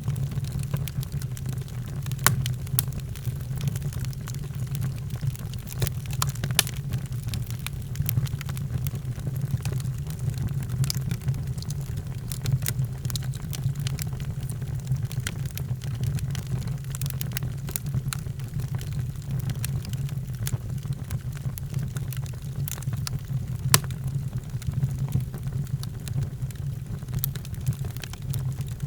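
Fire burning in a fireplace: irregular sharp crackles and pops over a steady low rumble, with the loudest pop a little before the end.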